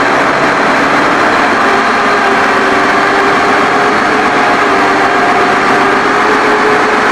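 Machinery running steadily: a loud, even drone with several steady humming tones and no breaks.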